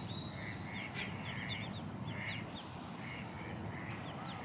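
A duck quacking over and over, about once a second, with many short high peeps, as from ducklings, scattered among the quacks.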